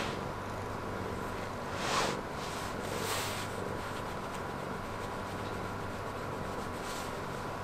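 A hand scratching and stroking a cat's fur, with brief brushing swishes near the start and about two and three seconds in, over the cat's steady low purring.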